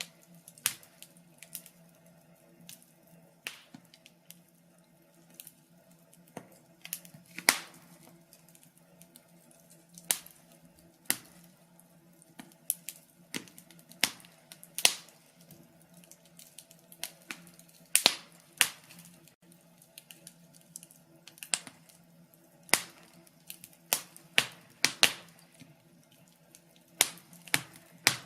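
Wood fire crackling in a fireplace: irregular sharp pops and snaps, a few each second, over a faint steady low hum.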